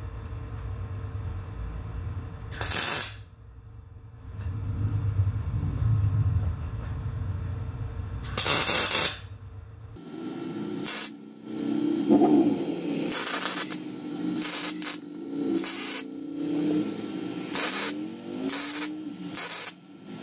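Lincoln PowerMIG 210 MIG welder running 0.035 wire at 18 volts, tack-welding a steel fitting onto a hydraulic cylinder tube. The arc crackles in two short bursts about six seconds apart, then in a string of shorter bursts one after another.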